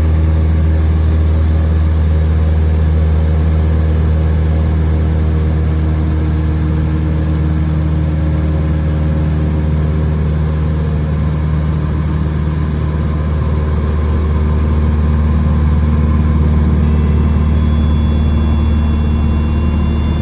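Piston engine and propeller of a single-engine Cessna running at a steady drone, with no change in pitch. A few faint high steady tones come in near the end.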